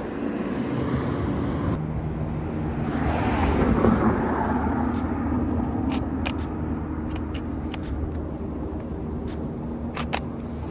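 City street traffic: a steady low engine hum, with a vehicle passing that is loudest about three to four seconds in. In the second half come a few short, sharp clicks from the handheld Canon EOS 60D camera being operated, two of them close together near the end.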